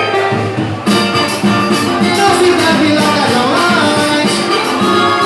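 Live Latin-style band playing an instrumental passage: guitar and percussion with a melodic line, at a steady beat.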